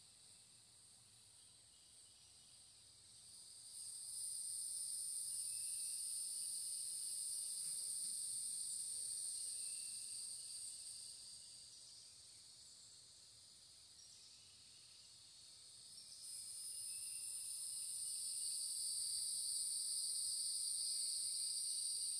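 Chorus of cicadas buzzing in sunny summer woods as a steady, high, shrill drone. It swells up about four seconds in, dies back down around the middle, and swells up again about two-thirds of the way through.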